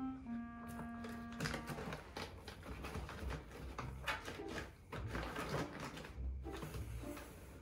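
Cardboard and the paper inside a box rustling, scraping and knocking in quick, irregular strokes as a cat digs through it with its head inside. Held music notes fade out about two seconds in.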